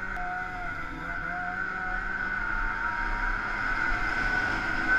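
2012 Arctic Cat Sno Pro 500 snowmobile's engine running steadily under way, its whine wavering slightly in pitch and getting a little louder toward the end.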